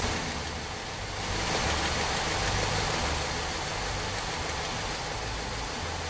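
Four-cylinder car engine idling steadily with a misfire, its number one spark plug wire pulled for a power balance test; the idle does not change because cylinder one is already dead.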